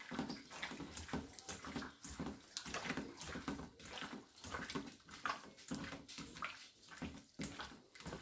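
Hands mixing raw chicken wings with seasoning in a bowl: irregular squishing and rustling strokes, several a second.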